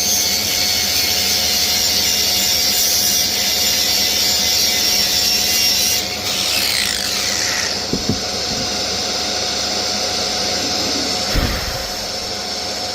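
Power grinder abrading scrap wood: a steady, loud rasp that sags in pitch about six seconds in, with a couple of knocks later on.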